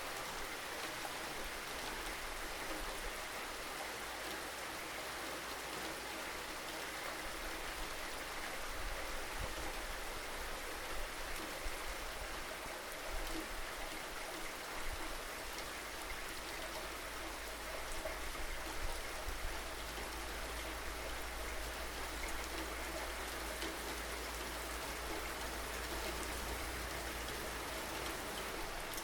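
Steady rain falling, a continuous hiss of drops with scattered small patters and a low rumble underneath.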